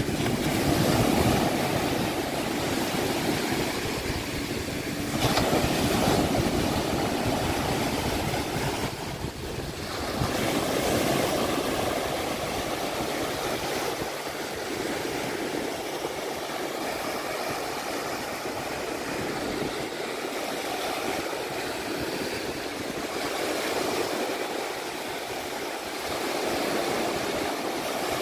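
Surf washing onto the beach: a steady rush of breaking waves that swells and eases every few seconds.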